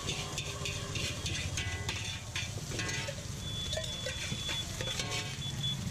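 Background music with a steady beat and short repeating notes.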